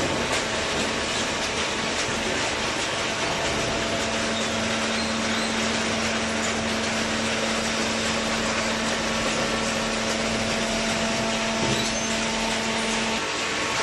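Paper baling machine running: a steady mechanical whir with a constant hum that grows stronger about three and a half seconds in and drops out shortly before the end.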